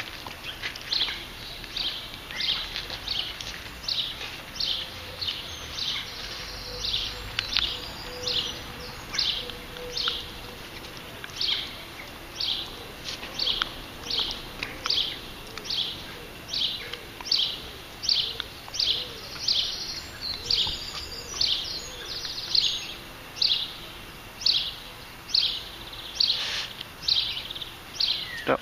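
A small bird calling with one short, high chirp over and over at an even pace, about one every three-quarters of a second, while another bird briefly sings higher twice.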